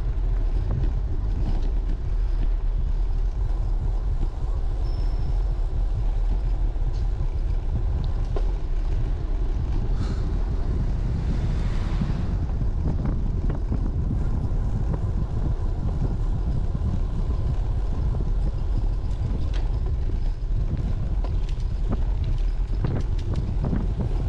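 Steady low wind rumble on the microphone while riding a bicycle, with a brief hiss about twelve seconds in.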